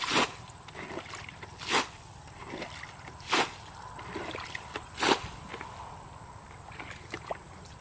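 Muddy water splashing as a plastic bucket is scooped through a shallow pond and emptied, four times about every one and a half seconds, with softer sloshing and squelching in between: bailing the pond out by hand.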